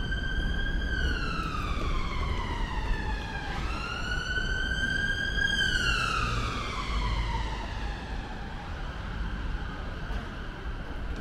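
Emergency vehicle siren sounding a slow wail: the pitch climbs, then falls away, twice, and the siren fades out near the end. A low steady rumble runs underneath.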